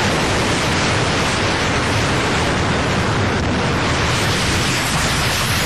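A loud, steady rushing noise with no distinct events.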